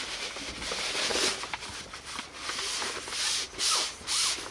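Fabric of a folding camping cot rustling and rubbing as it is handled and slid off the cot's poles during takedown, in a series of short swishes.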